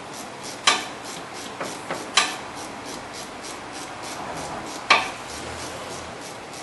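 Ratchet wrench clicking in a quick, even run as a brake caliper slide-pin bolt is tightened, with three sharp metallic knocks about two-thirds of a second, two seconds and five seconds in.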